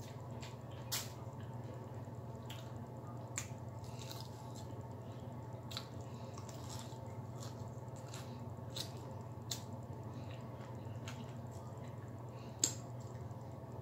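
Fried chicken wings being eaten close to the microphone: scattered wet mouth clicks, lip smacks and chewing, with fingers being licked, over a steady low hum. The sharpest smack comes near the end.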